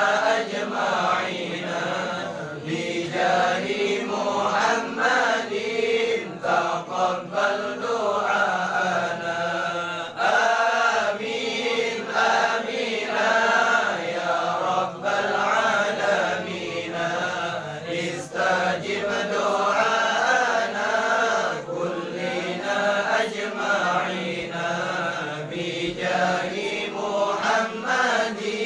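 A group of men chanting Arabic devotional prayers together in unison, a sholawat recitation of blessings on the Prophet, in continuous flowing phrases.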